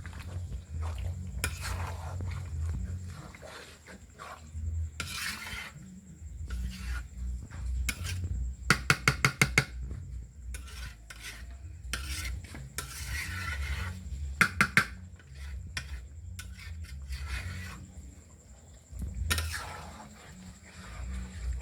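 Metal cooking utensils scraping and clanking against a pan, with two quick runs of sharp taps about a third and two thirds of the way through: the first of about six, the second of about four. A low steady rumble runs underneath.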